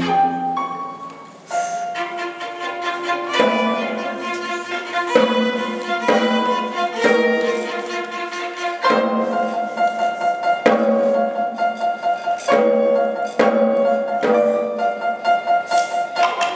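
Violin ensemble playing live, a melody in short, separate notes with quick repeated notes later on. The music drops away briefly about a second in, then picks up again.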